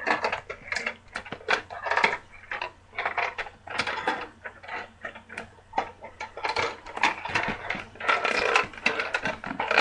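Perplexus maze ball being twisted in the hands, its small steel ball rolling and clattering along the plastic track inside the clear plastic sphere in quick, irregular clicks and rattles.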